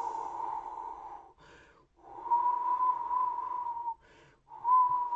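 Blizzard wind imitated with the human voice: breathy, blowing gusts with a whistling tone in them, coming in three gusts with short breaks between.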